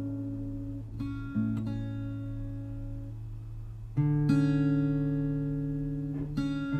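Background music: slow acoustic guitar chords, struck about a second in, again at about four seconds and near the end, each left to ring and fade.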